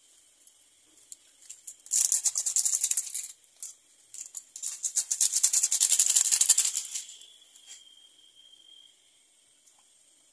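Foil instant-noodle seasoning sachet crinkling and being shaken as the masala powder is emptied out, a rapid rattling crackle in two bursts of a second or two each.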